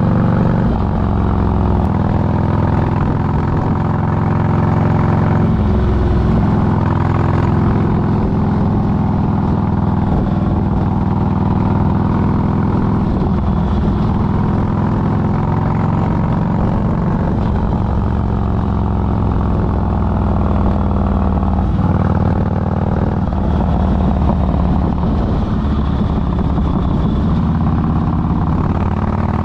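Motorcycle engine running while riding, its pitch drifting gently up and down with the throttle.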